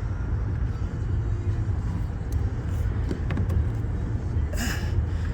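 Steady low rumble of an idling SUV engine, with a few small plastic clicks and a short rustling scrape near the end as trim pieces are handled.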